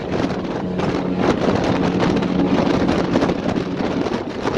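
Wind buffeting the microphone in an uneven, gusty rush, with a steady low hum underneath.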